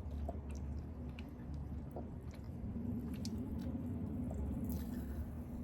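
Faint wet clicks and squishes of a mouth gulping down fizzy soda, scattered over a steady low hum.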